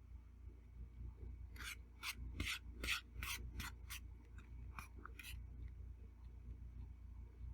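Eating utensil scraping across a plate in a quick series of short rasping strokes, about two a second, stopping about two-thirds of the way through.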